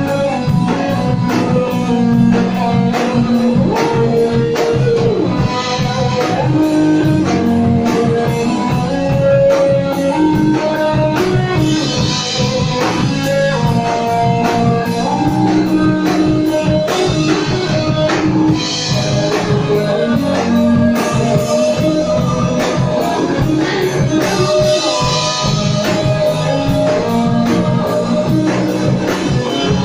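Live rock band playing: electric guitars holding and shifting chords over a drum kit keeping a steady beat.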